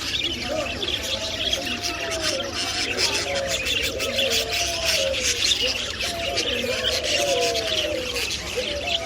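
Many caged birds chirping together in a dense, continuous high chatter, with lower rising-and-falling calls repeating about every second underneath.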